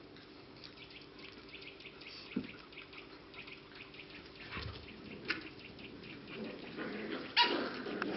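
English Cocker Spaniel puppies barking as they play, over many small ticks and rustles; the loudest bark comes near the end.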